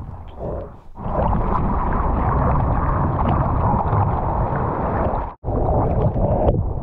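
Seawater sloshing and splashing against a camera at the sea surface, a loud, muffled rushing that starts about a second in. It cuts out for an instant about five and a half seconds in, then carries on.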